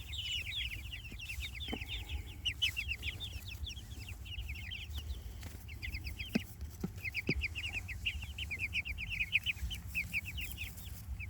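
A flock of young Jersey Giant meat chickens peeping continuously: many short, high, down-sliding cheeps overlapping several times a second. A few faint clicks are scattered through the middle.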